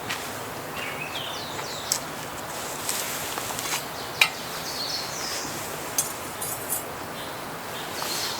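Birds chirping in a forest, several short calls sliding in pitch, over a steady outdoor background, with a few sharp clicks and a brief rattle of handled camping gear.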